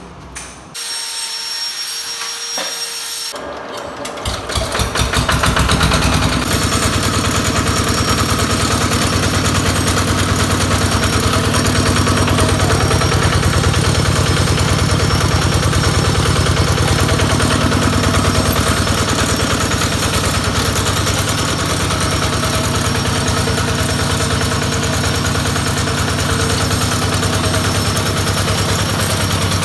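Small tractor engine driving a potato harvesting machine. It picks up speed about four to six seconds in, then runs steadily with an even, rapid beat.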